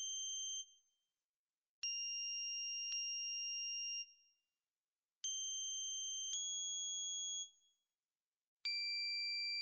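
Electronically generated pure tones. Each note is two steady high pitches sounding together, starting abruptly and held about a second before cutting off. The notes come two at a time, stepping to a new pitch for the second note, with a silent gap of about a second between the pairs.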